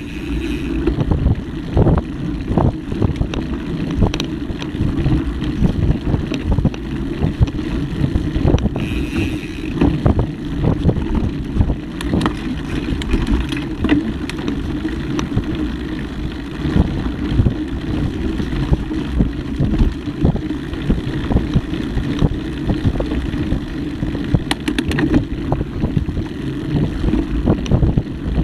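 Mountain bike ridden fast down a dirt trail: a steady low rumble of tyres and wind buffeting the action-camera microphone, broken by frequent knocks and rattles from the bike as it hits bumps.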